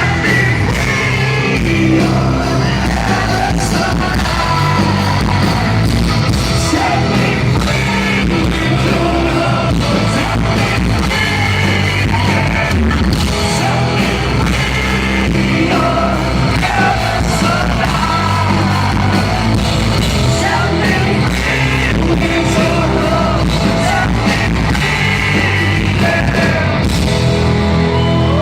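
Metal band playing live with singing over guitars, bass and drums, loud and unbroken.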